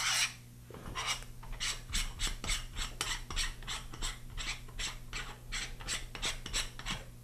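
Aluminum lens cover being unscrewed by hand from the threads of a riflescope's sunshade: a run of short scraping rasps, about three a second, as the fingers turn it round.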